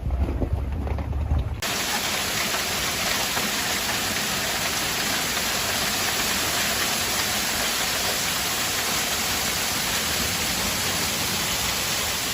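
Wind buffeting the microphone with a deep rumble, cut off abruptly about a second and a half in. A steady, dense hiss of heavy storm rain pouring down follows.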